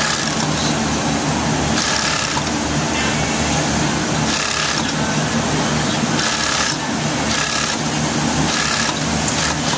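Industrial cover stitch sewing machine hemming a shirt, running in several short runs over a steady hum of factory machinery.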